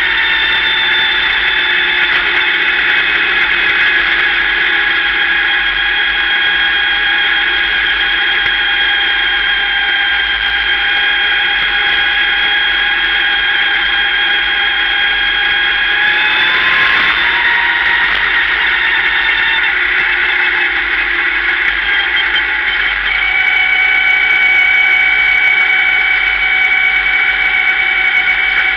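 Sportsman dirt-track race car's engine running on track, heard from the cockpit as a loud, steady, high-pitched drone, with a brief dip and change in pitch about two-thirds of the way through.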